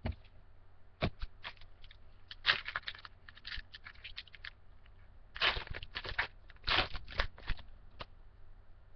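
A baseball card pack's wrapper crinkling and tearing as it is opened by hand, in several short crackly spells with brief pauses between them.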